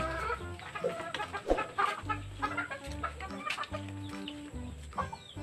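Chickens clucking in short scattered calls, over background music with steady sustained low notes.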